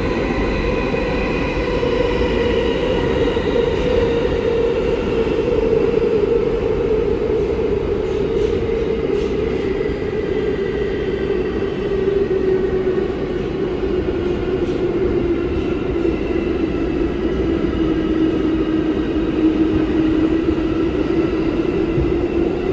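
NYC Subway 7 train (R188 car) running through the tunnel, heard from inside the car: a steady rumble of wheels and track with a motor whine that slowly drops in pitch over most of the stretch and rises slightly near the end.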